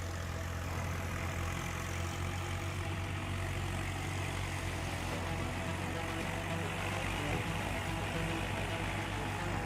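Heavy truck engine running steadily with a low, even hum.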